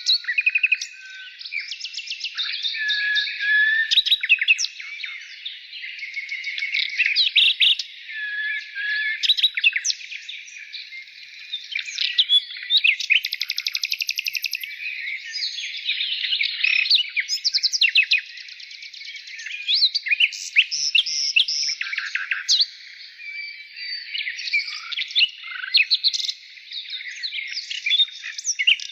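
A chorus of many birds chirping at once: overlapping high-pitched chirps, short whistles and fast trills, with no pause.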